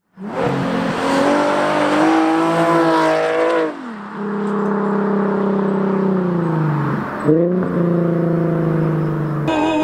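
Car engine revving under hard acceleration: its pitch climbs, drops sharply a little under four seconds in, slides down, and picks up again about seven seconds in.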